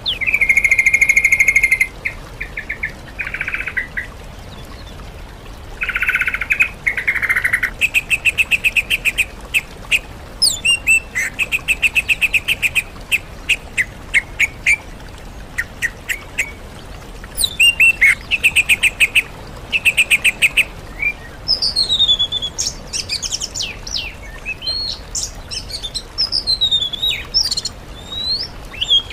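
Songbird song from a mix of sooty-headed bulbul, oriental magpie-robin and greater green leafbird. Loud phrases of buzzy held notes and fast runs of repeated chipping notes are broken by short pauses, and sliding whistled notes take over in the last third.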